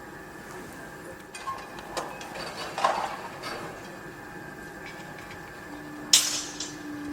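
Construction-site noise: scattered metallic clanks and knocks over a steady hum, the loudest clank about six seconds in. A low steady tone comes in near the end.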